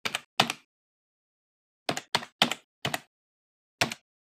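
Computer keyboard keystrokes as a typing sound effect: about seven separate key clicks in uneven groups, two close together at the start, four in quick succession around the middle, one near the end, with dead silence between them.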